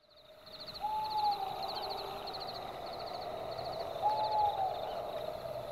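Night ambience fading in from silence: an owl hooting twice, each hoot held and then dropping slightly at the end, over a steady high, rhythmic chirping.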